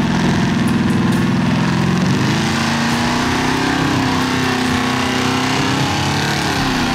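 Lifted pickup truck's engine revving as it pushes through a mud pit. The pitch climbs about two seconds in, holds high, then drops near the end.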